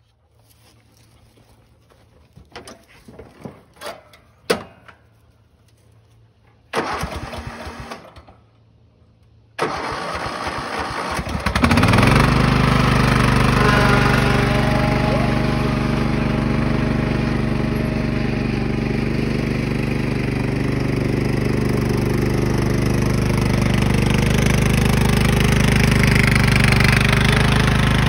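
Craftsman LT1000 riding mower engine being started: a few light knocks and a short burst, then the starter cranks from about ten seconds in, the engine catches and rises in pitch about two seconds later, and it runs steadily.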